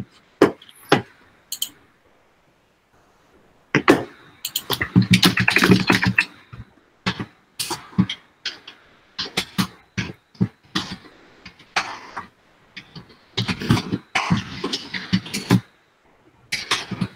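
Irregular clicks and knocks with a few short, muffled vocal sounds, heard over a video-call line.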